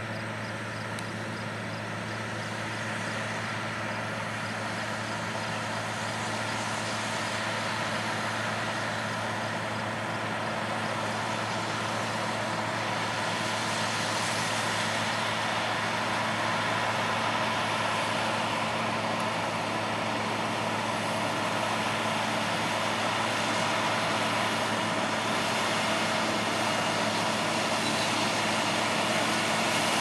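Challenger 670 combine running while harvesting wheat: a steady engine drone with a low hum under a broad even rushing noise, slowly growing louder as the combine comes nearer.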